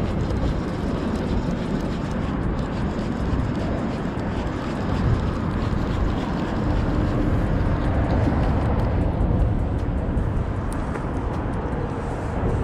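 Steady low rumble of highway traffic.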